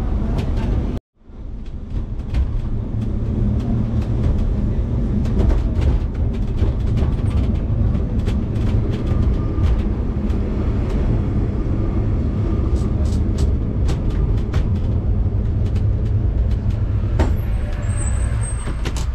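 Inside a vintage Lisbon tram running along street rails: a steady low rumble with rattles and clicks throughout. The sound drops out briefly about a second in, and a short high squeal comes near the end.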